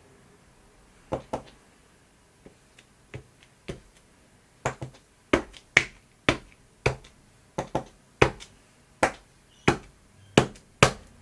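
A small plastic-handled stamp tapped down again and again onto a paper collage on a craft mat: sharp taps, a few scattered at first, then about one or two a second, some in quick pairs, louder from about five seconds in.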